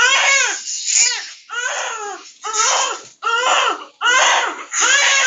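Newborn baby crying hard in a run of short, arching wails, one after another with quick gasps for breath between them.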